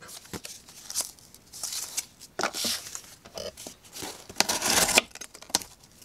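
Corrugated cardboard being handled and sliced with a very sharp Civivi Asticus folding knife: several rasping, tearing strokes, the longest and loudest about four and a half seconds in.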